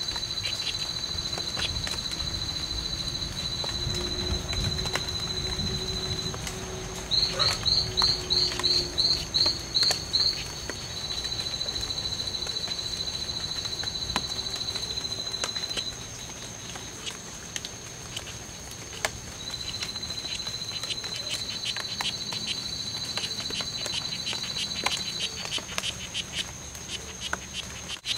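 Strawberry poison dart frogs calling in long, steady, high-pitched trills that stop and restart. About seven seconds in, a nearer frog gives a run of about nine loud, rising chirps over some three seconds.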